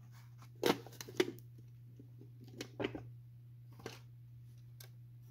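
Handling noises as a plastic model train car is moved and set aside on a foam-covered bench: a few light, scattered knocks and clicks over a steady low hum.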